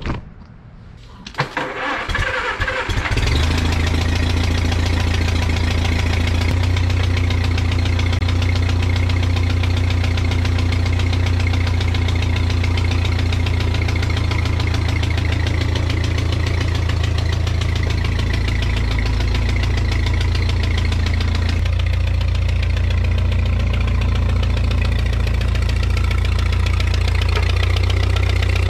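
1957 Oliver Super 55 tractor's four-cylinder engine cranked by its starter for about a second and a half, catching about three seconds in, then running steadily. This is its start-up on a temporary fuel tank and a jury-rigged battery.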